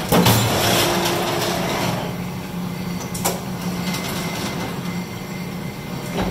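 AMADA Pega 344-Q CNC turret punch press running without rapid punching: a steady mechanical hum and rumble, with a short whine about half a second in and a single sharp knock a little after three seconds.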